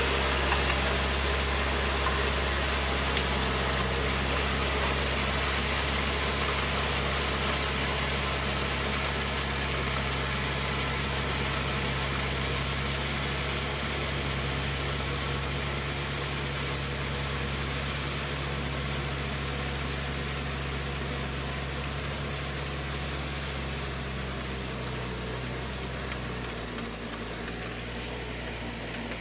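Yanmar tractor's diesel engine running steadily as it pulls a harrow through flooded paddy mud, slowly growing fainter as it moves away.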